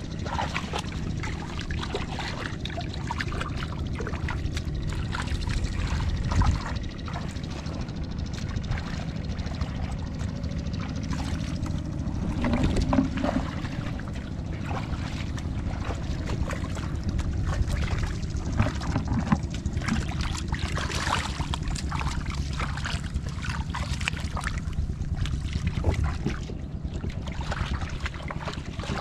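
Wind rumbling on the microphone, with hands and boots sloshing and splashing in shallow muddy paddy water.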